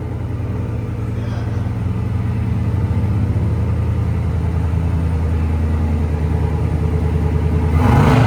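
Chevrolet Silverado V8 gasoline engine running through a 3-inch stainless exhaust cutout held open: a deep, steady rumble that grows louder over the first few seconds and then holds, with a short louder burst near the end.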